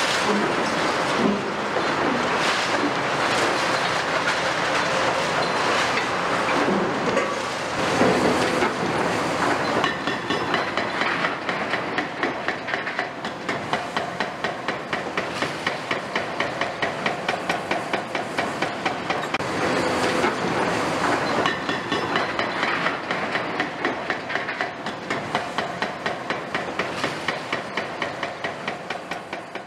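Demolition excavators at work on a concrete building: a steady din of diesel engines and hydraulics with crunching, clattering debris. From about a third of the way in, a regular clanking rhythm of about two beats a second runs under it, and the sound fades out near the end.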